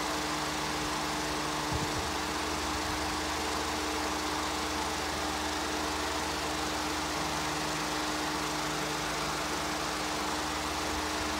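A steady, unchanging hum with a constant hiss over it and a faint fast pulsing underneath.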